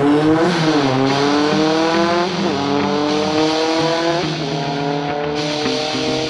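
Motorcycle engine accelerating hard, its pitch climbing and dropping back three times, about two seconds apart, as it shifts up through the gears.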